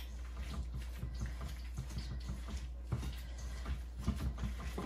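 Gloved hands squeezing and kneading raw ground turkey mixed with egg and vegetables in a stainless steel bowl: a quick, irregular run of soft wet squelches.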